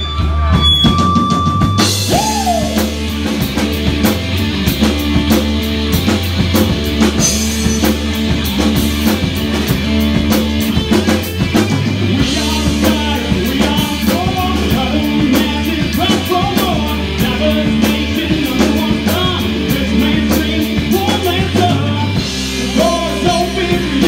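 A live rock band, with electric guitar, bass guitar and drum kit, playing through amplifiers. A held guitar note opens, and the full band with driving drums comes in about two seconds in.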